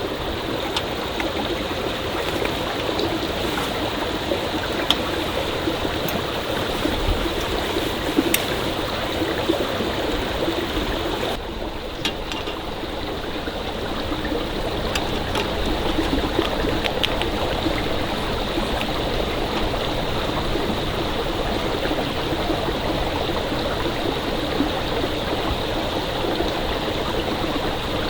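Stream water flowing steadily, with a few faint clicks here and there.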